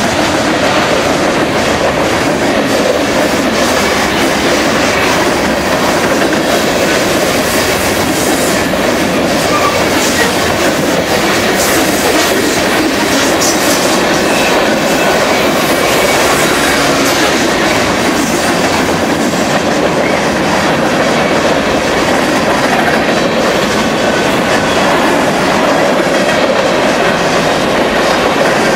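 Canadian National freight cars rolling past at speed, a steady, loud rumble and rattle of steel wheels on the rails.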